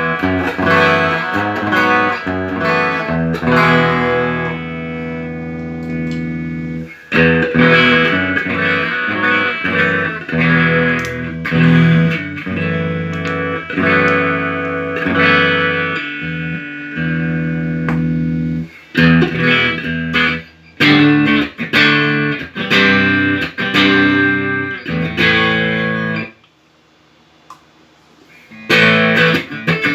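Electric guitar played through a Tech21 SansAmp GT2 amp-simulator pedal, which is being sound-tested after a repair. It plays a run of chords and single notes, each cut off sharply. There is a pause of a couple of seconds before it starts again near the end.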